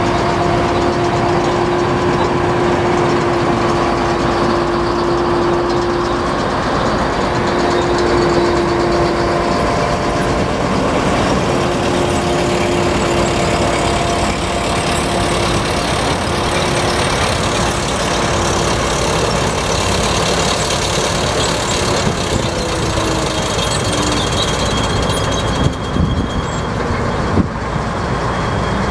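Gleaner S78 combine running: a loud, steady mechanical noise with a held whining tone that weakens past the middle and slides lower a little after twenty seconds. A couple of sharp knocks come near the end.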